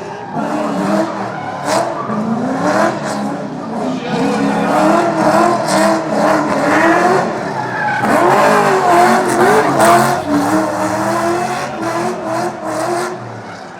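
Holden Commodore's LS2 V8 drift car revving up and down hard through a drift run, with tyres squealing and skidding.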